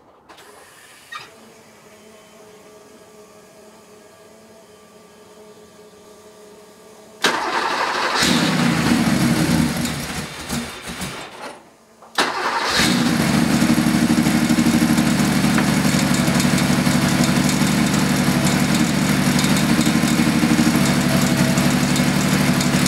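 Porsche 930 Turbo's 3.3-litre air-cooled flat-six cranked and started about seven seconds in. It runs unevenly for a few seconds and dies away, then is restarted at once, catches and settles into a steady idle.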